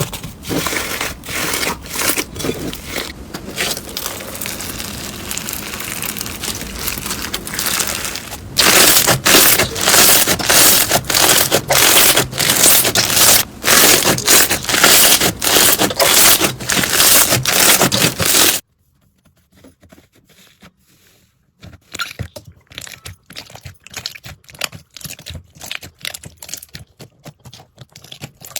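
Slime being pressed, squeezed and stretched by hand, giving dense crackling and clicking. It is moderate at first, grows much louder and denser about eight seconds in, stops for a few seconds, then comes back softer.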